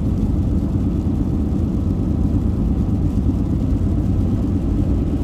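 Steady low rumble of a Winnebago Revel camper van's engine and tyres, heard from inside the cab while cruising on a highway.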